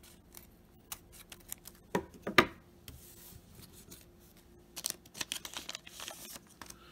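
Crinkling and tearing of a foil baseball-card pack wrapper being worked open, a quick run of small crackles near the end. About two seconds in, two sharp taps come first, the loudest sounds.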